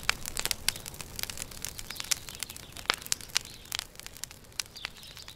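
Irregular crinkling and crackling of a cloth blanket being handled and lifted: many small clicks at uneven intervals, a few sharper ones, over a faint low rumble.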